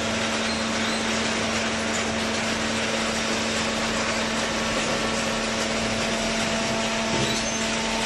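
Industrial machinery running steadily: a constant hum over an even mechanical noise, typical of a baler's electric motor and hydraulic pump.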